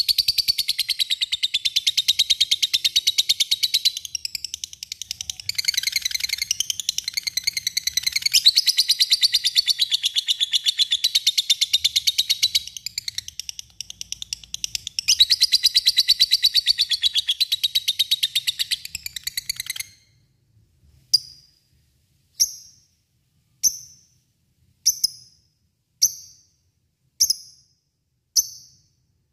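Lovebird's long 'ngekek' chatter, a rapid, unbroken high trill. It runs for about twenty seconds with a couple of brief dips, then breaks off into single sharp chirps about one every second.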